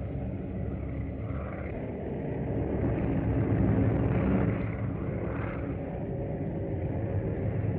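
Propeller airplane engines droning in flight, swelling a little about halfway through.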